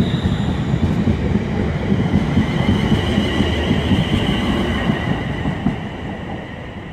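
London Midland Class 350 Desiro electric multiple units, a double set, running past on rails with a heavy rumble of wheels and a steady high whine. The train draws away and the sound fades near the end.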